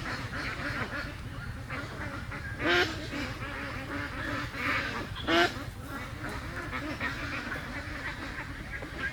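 A flock of domestic ducks quacking, with many overlapping calls and two louder quacks near the middle, over a steady low rumble.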